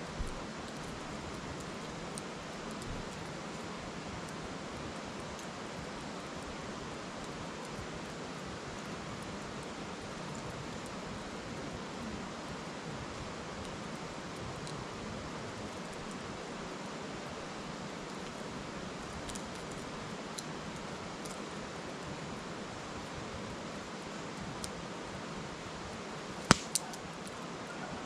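A river's steady murmur under a wood fire that crackles now and then, with one sharp pop from the burning logs near the end, followed quickly by a smaller one.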